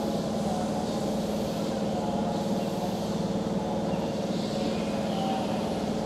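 Steady hum of Keihan electric trains standing at a station platform, their onboard equipment running, with a few faint high chirps over the top.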